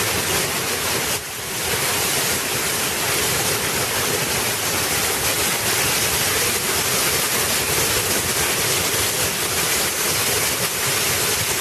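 Torrential downpour: heavy rain falling steadily and densely, with a brief lull about a second in.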